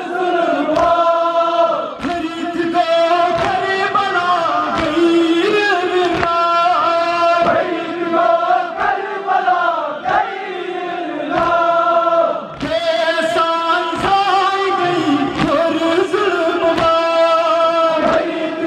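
Kashmiri noha (Muharram lament) sung by male voices in a drawn-out, wavering melody, with regular slaps of chest-beating (matam) from the mourners marking the beat.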